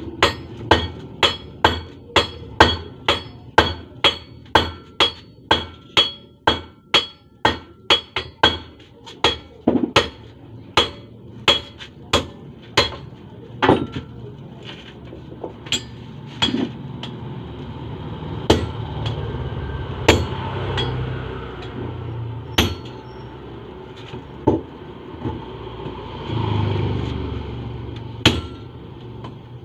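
Hammer blows on a red-hot iron bar on an anvil, each strike ringing. A quick run of about two strikes a second gives way, about nine seconds in, to slower, spaced blows.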